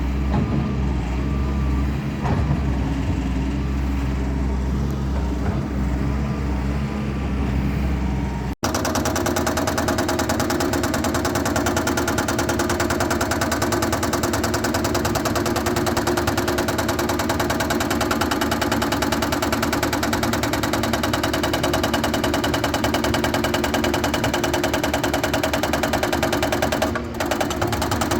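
Heavy machine engine running steadily with a low hum. About eight seconds in, a sudden cut leads to a different machine sound: a fast, even clatter over steady tones.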